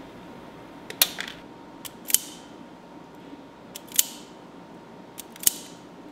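Self-adjusting wire stripper snapping shut on wire ends to strip the insulation, four sharp snaps about a second or so apart, each with a softer click just before it and a brief high hiss after.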